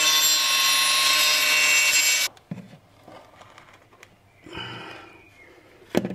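Angle grinder cutting through a ceramic wall tile to trim it to fit: a loud, steady high whine for about two seconds that stops abruptly. Then quieter handling and scraping sounds, with a sharp click near the end.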